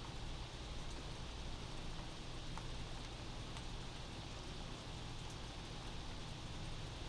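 Steady rain heard from inside a house, an even patter over a low steady rumble, with a few faint drip ticks.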